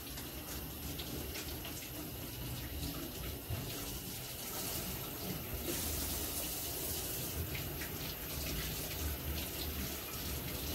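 Kitchen tap running steadily into a sink during washing up by hand, with a few faint clinks and knocks.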